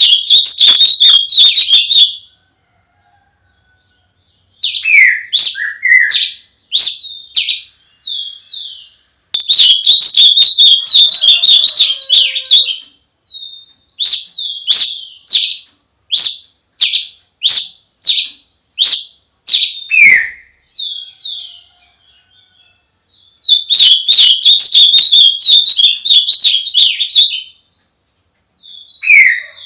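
A songbird singing close by in loud phrases: fast buzzy trills around one pitch alternating with varied, rapidly repeated chirped and whistled notes, with short pauses between phrases.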